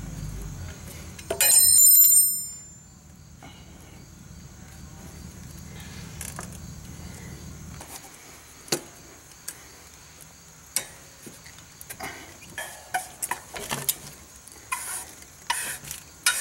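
A sharp metallic clang that rings briefly with a high tone, followed by scattered light clicks and taps.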